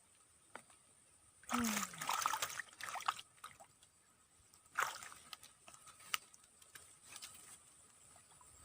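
Water splashing and sloshing in two bursts, a longer one about a second and a half in and a short sharp one near five seconds, with small drips and ticks between.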